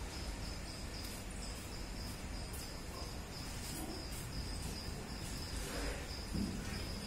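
High-pitched insect chirping, about three chirps a second, over a low background rumble.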